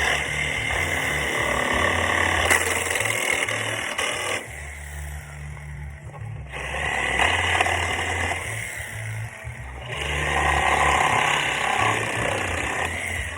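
Reciprocating saw (Sawzall) with a metal-cutting blade running in long bursts, cutting through the nails that hold pallet boards to the 2x4 stringers, with a pause of about two seconds after the first burst. Background music plays under it.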